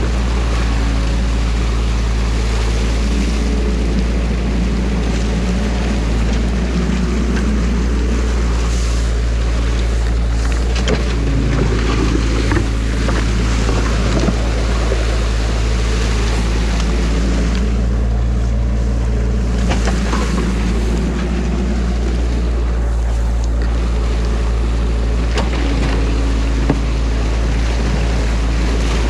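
Diesel engine of a compact tracked excavator running steadily as it digs out a beaver dam, with muddy water churning and splashing around the bucket and pouring through the breach.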